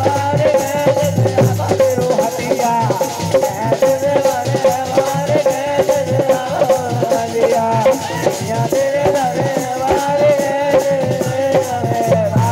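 Live folk devotional song (Devi bhajan): men singing together over dholak drum strokes and jingling percussion that keeps a steady beat.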